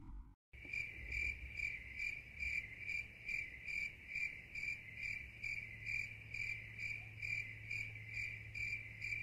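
Cricket chirping sound effect, an even chirp repeating about two and a half times a second, starting about half a second in, over a faint steady low hum. It is the stock cartoon cue for an awkward silence.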